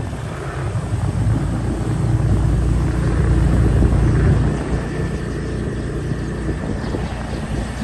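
Steady low rumble of a moving vehicle's engine and tyres on the road. A faint steady high tone joins about halfway through.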